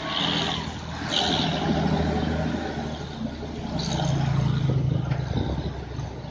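Passing road traffic dominated by heavy trucks: a deep diesel truck engine rumble that swells as a truck goes by close, loudest about four to five seconds in, with cars and motorcycles passing. Two short hisses come in the first second and a half.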